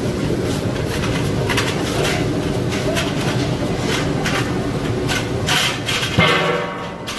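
Steady rushing noise from commercial gas burners and a big aluminium pot of water at a rolling boil. A steel bowl clanks against the pot a few times, and about six seconds in it strikes with a louder metallic clang that rings briefly.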